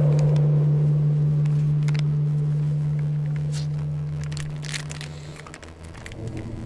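A low steady hum fades out over about five seconds, with scattered small clicks and crackles.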